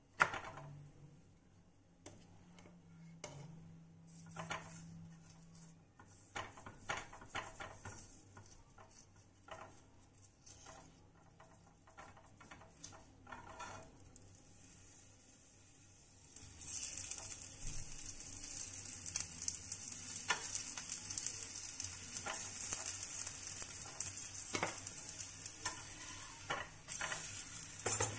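Aloo paratha cooking on a hot iron tawa: a few light clicks and scrapes of a spoon on the pan, then from a little past halfway ghee sizzling steadily under the paratha, with scattered crackles.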